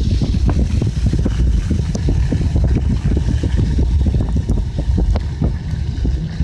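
Vehicle driving over snow, heard from inside the cab: a steady low rumble with many small irregular knocks.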